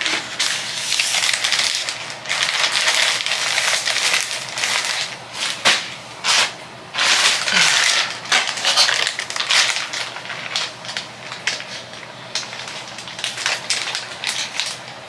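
Plastic garment bag and dress fabric crinkling and rustling as the dress is handled and folded. The crackly rustling comes and goes, with a short pause about six seconds in.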